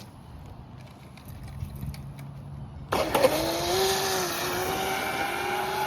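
Low wind rumble, then about three seconds in the Pro Boat Blackjack 26 RC catamaran's 4300 kV brushless motor on 3S comes in suddenly at speed: a loud rushing sound with a steady high whine that climbs slightly in pitch.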